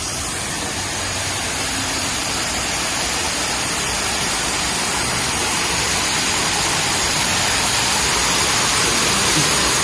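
Rushing water of a waterfall, a steady hiss that grows gradually louder.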